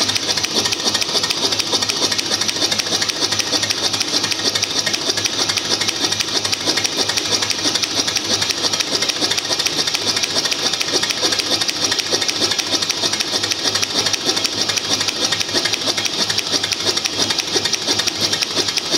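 Hasbroucke V2 Simple model marine steam engine, a two-cylinder V, running steadily on compressed air from a small tank. It makes a rapid, even mechanical clatter under a steady hiss.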